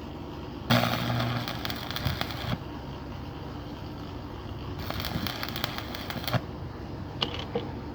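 Electric arc welding: two spells of sputtering, crackling arc, the first about two seconds long and the second about a second and a half, with a low hum at the start of the first.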